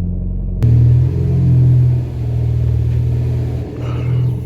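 Mitsubishi Lancer Evolution X's turbocharged 2.0-litre four-cylinder idling steadily while it warms up after a cold start. About half a second in, the sound changes suddenly and the engine is louder from then on.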